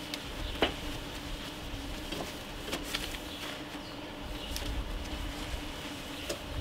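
A cloth wiping the glass side panel of a PC case, rubbing with a few short squeaks and clicks scattered through, over a faint steady hum.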